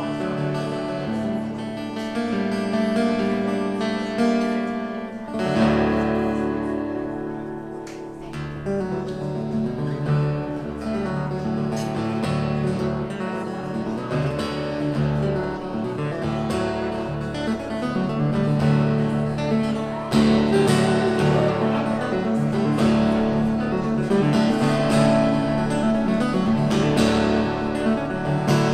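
Solo fingerstyle acoustic guitar: ringing chords and a picked melody, with louder struck chords about five seconds in and again about twenty seconds in.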